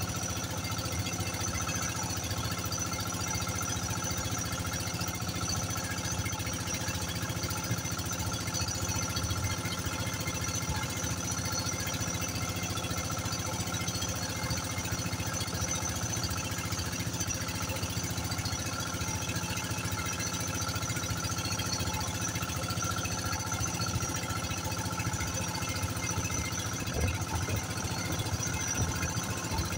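Inboard engine of a motorized outrigger boat (bangka) running steadily at cruising speed, with water splashing along the bamboo outrigger.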